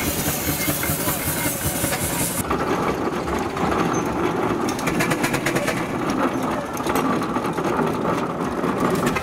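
An engine running steadily, with a rhythmic ticking beat; the sound changes abruptly about two and a half seconds in.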